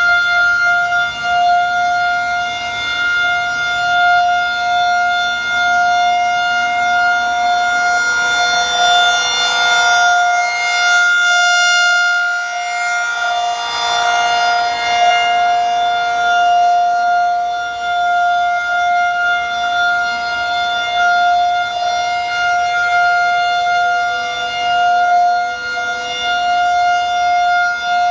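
Federal Signal 2001-130 rotating mechanical outdoor warning siren sounding a steady, unwavering tone during a test. The tone grows fuller and brighter about a third of the way in and eases back again as the rotating horn sweeps past.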